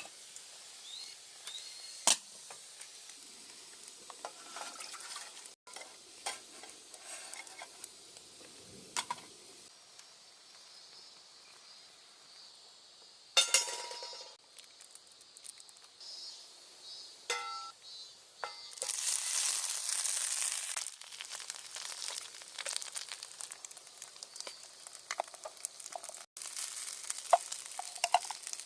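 Food sizzling as it fries in a pan, with scattered clicks and short metallic clinks of utensils against the pan. The sizzling grows louder for a couple of seconds about two-thirds of the way through.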